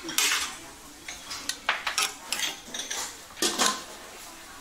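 Dishes and metal utensils clinking and clattering as bowls of food are served, a series of sharp, irregular clinks and knocks.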